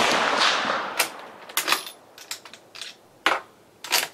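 The rolling echo of a 6.5x55mm Swedish m/96 Mauser rifle shot dies away over the first second. Then the bolt is worked, giving a series of sharp metallic clicks and clacks as it is lifted, drawn back and run home to cycle the spent case.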